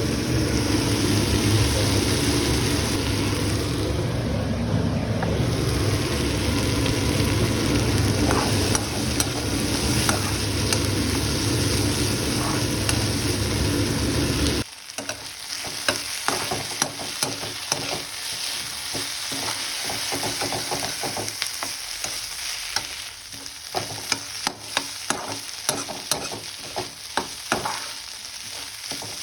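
Chopped vegetables sizzling in hot oil in a pan while being stirred with a spatula, which scrapes and clicks against the pan. A loud low rumble runs under the sizzle and cuts off suddenly about halfway through; the scraping clicks are clearest after that.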